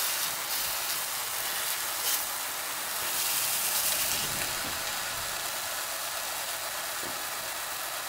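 Chicken burgers sizzling in a non-stick griddle pan on an induction hob: a steady frying hiss, with a light tap of the metal spatula about two seconds in.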